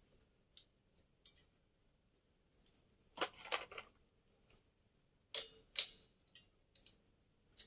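Small clicks and crackly handling noises from small objects being handled. They come in a louder cluster about three seconds in and another about five and a half seconds in, with faint ticks between.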